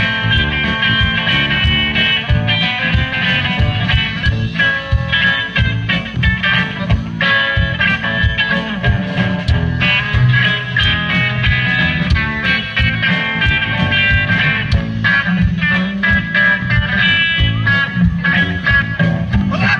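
Live rock band playing: electric guitars over bass with a steady beat, amplified through a PA.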